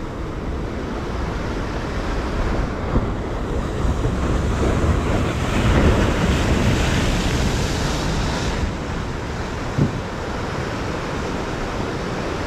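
Heavy ocean surf washing against a rock jetty, with wind buffeting the microphone; a wave surge swells up about halfway through and then falls back.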